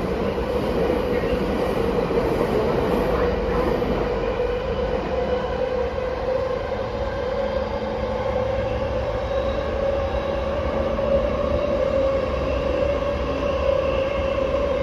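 Running noise inside an E231 series 0-subseries commuter train car: a steady rumble of wheels on rail with a continuous mid-pitched tone that edges slightly higher in pitch partway through.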